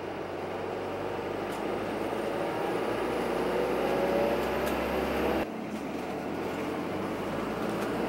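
Steady engine and road noise heard from inside a moving tour vehicle. The noise drops out abruptly about five and a half seconds in, then resumes much the same.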